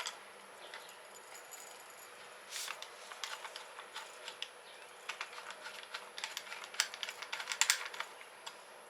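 Plastic fittings of an electric pressure washer being handled and fitted together: irregular light clicks and rattles, busiest in the middle and latter part.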